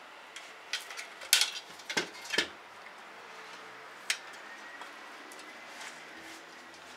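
Aluminium window-frame profiles knocking and clinking against each other and the workbench as a frame is fitted together: a quick cluster of sharp metallic knocks, then one more about four seconds in.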